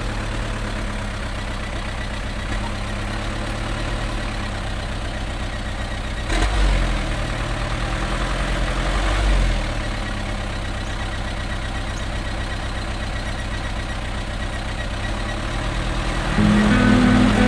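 Truck engine idling steadily, with two short rises in engine speed about six and nine seconds in. Background music comes in near the end.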